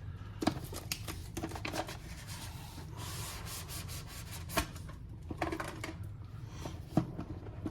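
Smartwatch box and its packaging being opened by hand: cardboard and wrapping rubbing and rustling, with a few sharp clicks and taps as the parts are handled.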